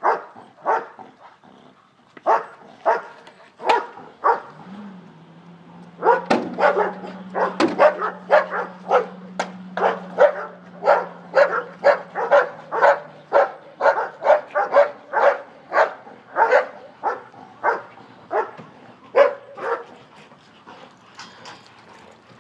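Police protection dog barking repeatedly: a few single barks, then a fast, sustained run of about two barks a second that tails off near the end. A low steady hum sits under the barking for several seconds in the middle.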